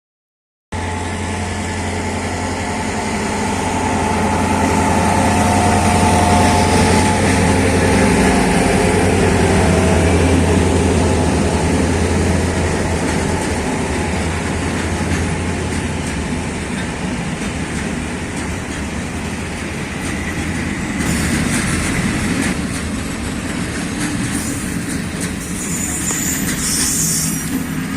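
Train passing close by: a steady low engine drone with rolling rail-car noise, starting abruptly just under a second in. The drone fades after about halfway, leaving the cars rolling by, with brief high-pitched squeals near the end.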